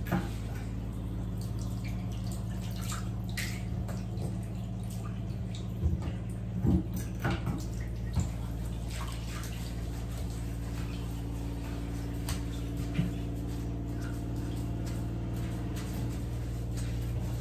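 Bathroom tap running into a sink basin while a sponge scrubs it, with splashing water, over a steady low hum. A few knocks against the basin come about six to eight seconds in and once more later.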